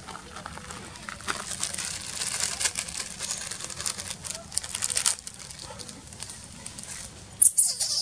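Plastic snack packet crinkling and crackling as a macaque handles and bites at it, a dense run of crackles in the first half, then two sharper, louder rustles near the end.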